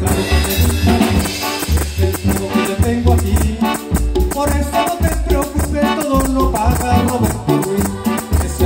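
A live cumbia band playing: electronic keyboards carry the melody over a steady, regular drum beat.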